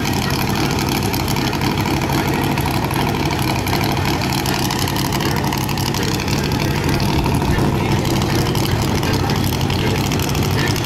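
A vehicle engine running steadily and unevenly, misfiring.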